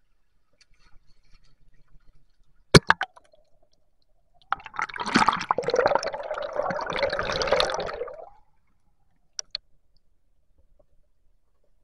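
A couple of sharp knocks, then stream water splashing and gurgling right at the microphone for about four seconds as it goes into the water.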